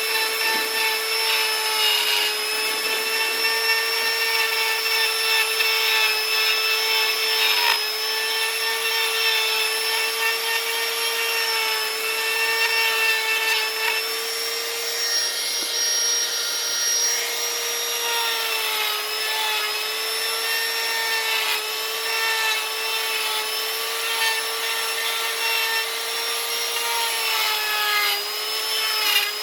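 Electric power carving tool running at high speed with a steady whine, its pitch dipping slightly now and then as it cuts into wood.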